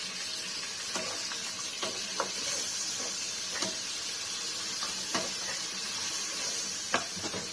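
Sliced onions and chillies sizzling steadily in a wok with a little water in the pan, stirred with a wooden spatula that knocks against the pan now and then, the sharpest knock near the end.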